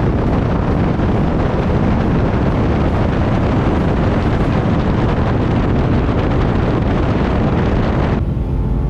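Loud wind and road noise rushing over the microphone as a Ram 2500 pickup is driven hard, with no engine note standing out. The rush drops off suddenly near the end.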